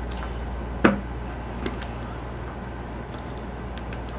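Small screwdriver knocking against a plastic EC5 connector housing while forcing a connector pin home: one sharp knock about a second in and a fainter one just under a second later, with a few light ticks, over a steady low hum.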